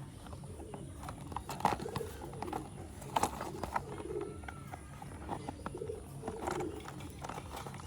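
Sharp plastic clicks and knocks as wheels are pressed onto a cheap plastic toy car, with a bird giving a low, repeated call in the background.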